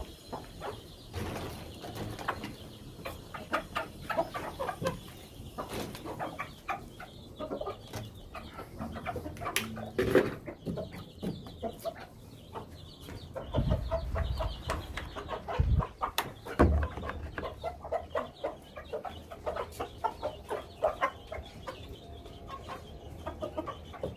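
Domestic hens clucking continuously while feeding on an earth floor, with frequent short taps. A few low thumps come about two-thirds of the way through.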